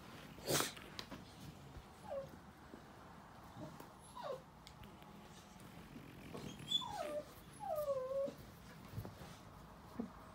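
Two dogs play-wrestling, whining and yipping in short calls that fall in pitch, about four of them, the last the longest, with low growling underneath. A loud sharp noise about half a second in.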